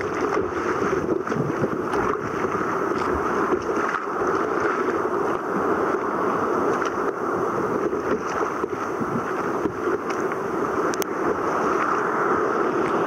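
Steady rushing of wind and sea water at a fairly loud, even level, with wind buffeting the microphone.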